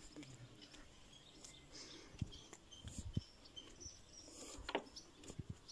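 Quiet outdoor ambience with birds chirping here and there, and a few soft low thumps of footsteps on wooden decking, the firmest about three seconds in.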